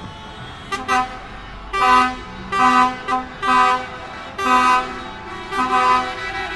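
Vehicle horns honking in street traffic: about six short blasts, each under a second, coming roughly once a second.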